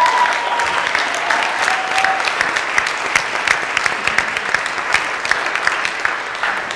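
Audience applauding, a dense steady clapping that starts to die down near the end.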